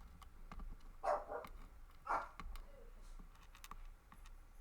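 Dogs barking: two barks about a second apart, with faint light clicks between.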